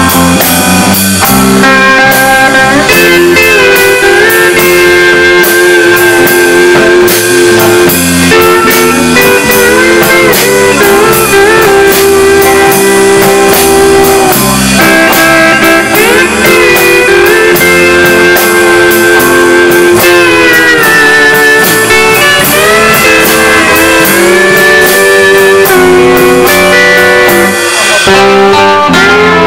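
Country band playing an instrumental break live: a guitar lead with bending, sliding notes over bass guitar and drums.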